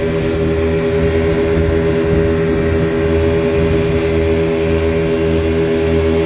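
Motorboat engine running steadily as the boat cruises, a constant drone.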